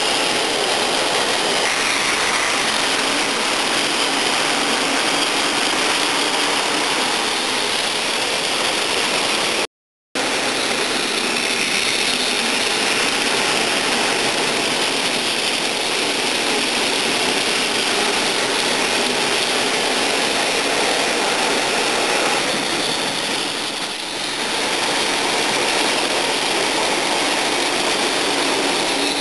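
Battery-powered Plarail toy trains running on plastic track: a steady whirring of their small electric motors and gears, with the wheels of the freight wagons rolling along the track. The sound cuts out completely for about half a second about ten seconds in, then carries on.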